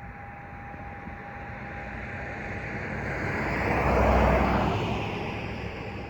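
A vehicle passing on the road, growing louder to a peak about four seconds in and then fading. Under it runs a steady high howling tone from a school heating system's exhaust, which is drowned out as the vehicle passes.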